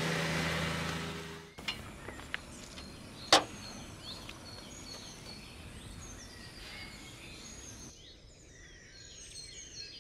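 Background music fades out in the first second and a half, giving way to outdoor ambience with birds chirping. A single sharp knock about three seconds in is the loudest sound.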